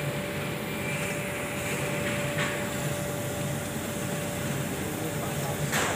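Two-head laser cutting machine running while it cuts furry fabric: a steady mechanical hum with a thin, steady whine, and a brief hiss about two and a half seconds in and again near the end.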